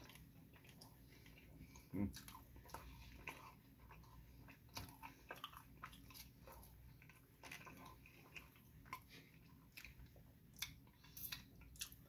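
Faint close-up chewing of a burger: soft wet mouth smacks and clicks, with a slightly louder one about two seconds in, and finger-licking smacks near the end.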